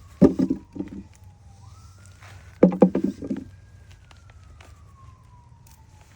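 A faint siren wailing, its pitch sliding slowly down, then quickly back up and down again. Two short bursts of a person's voice are the loudest sounds, with light clicks and rustles of handling throughout.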